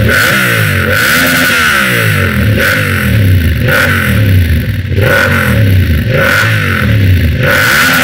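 Yamaha MT-07 parallel-twin engine with racing headers without a catalyst and an Arrow Works exhaust with its dB killer fitted, revved hot at a standstill in repeated throttle blips, rising and falling about once a second. The exhaust note is loud and deep.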